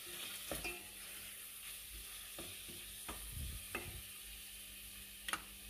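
Meat and onions sizzling in oil in a stainless steel pot, stirred with a wooden spoon that knocks against the pot a few times.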